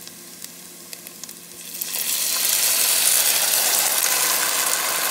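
Crushed tomatoes poured into a hot pot of sautéed onion, garlic and tomato paste in olive oil. There are a few faint pops from the pan at first, then about two seconds in the wet tomatoes hit the hot oil and a loud sizzle starts suddenly and keeps going.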